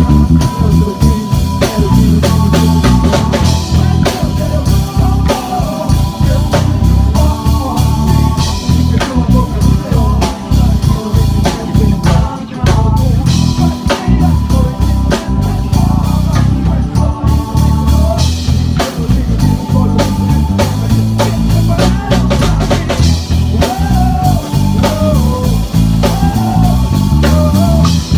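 Live band music with an electric bass guitar up front, played in a busy line over a drum kit, with sustained chords and melody above.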